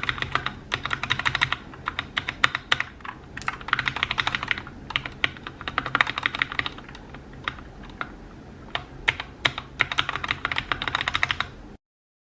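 Fast typing on a mechanical keyboard with Gateron switches: runs of rapid clicking keystrokes with looser, slower strokes between them, stopping abruptly near the end.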